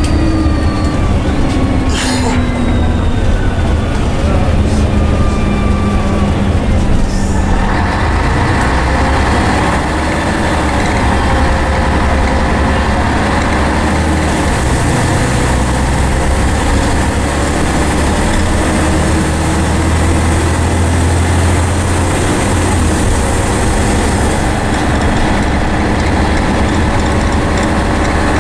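Scania N113 bus with a Voith automatic gearbox heard from inside the saloon on the move: a steady low engine rumble with a drivetrain whine. The whine falls in pitch for the first seven seconds or so, then the sound changes abruptly and the whine runs steady at a fixed pitch.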